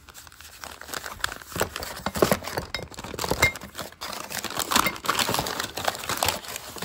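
Brown kraft packing paper rustling and crinkling as it is pulled back and handled inside a cardboard parts box, in quick irregular crackles.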